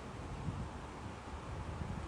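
Wind buffeting the microphone outdoors: irregular low rumbles over a steady hiss.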